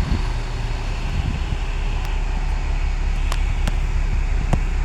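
Steady road-vehicle noise with a low engine rumble, with a few faint clicks.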